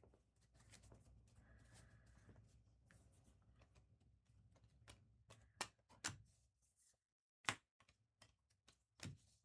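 Faint handling of trading cards: soft sliding and rustling, then four sharp clicks in the second half, over a low steady hum.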